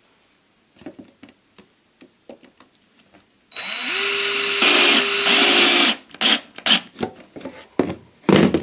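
Cordless drill driving a screw. The motor starts about three and a half seconds in, rises in pitch as it spins up, runs for about two and a half seconds and stops. Light handling clicks and taps come before and after, with a knock near the end as the drill is set down.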